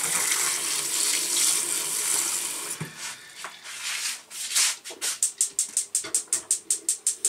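Tap water running into a saucepan for about the first three seconds, then a gas hob's spark igniter clicking fast and evenly, about five clicks a second, as the burner under the pot of eggs is lit.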